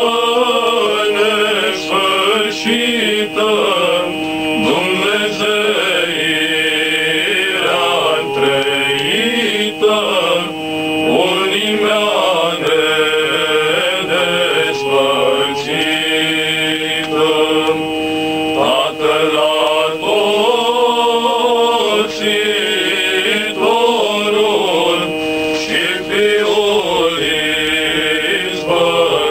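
Male vocal ensemble singing a Romanian Christmas carol (colind) in several voices, the melody moving over a steady held low note.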